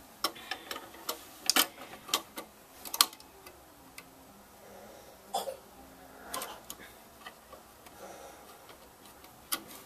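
Scattered sharp plastic clicks and taps as a blade housing is handled and seated in the carriage clamp of a Cricut Expression 2 cutting machine, the loudest about three seconds in.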